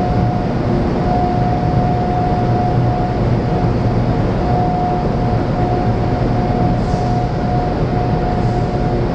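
Loud, steady machinery drone in a hydroelectric powerhouse: a low hum under a thin, steady high whine that drops out briefly now and then.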